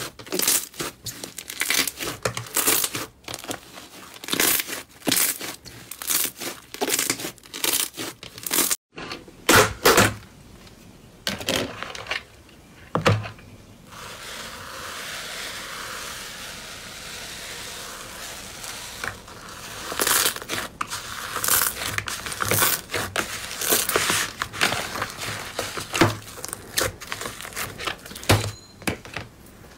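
Slime being pressed, squished and poked by hand: rapid wet crackling and popping clicks, with a stretch of steady fizzing crackle in the middle as a finger works into a tub of crunchy slime.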